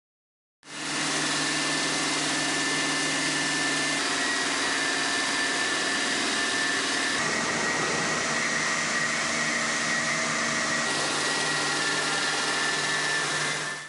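Water-fed stone bridge saw running, its large circular blade cutting a stone slab: a steady mechanical whine and hum with a high tone. The sound starts about a second in, shifts in tone around the middle and again near the end, and cuts off suddenly.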